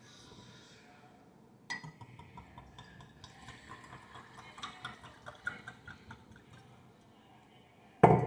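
White wine poured from a glass bottle into a stemmed wine glass: a sharp clink about two seconds in, then an irregular gurgle of wine running into the glass for about four seconds. A brief loud sound near the end.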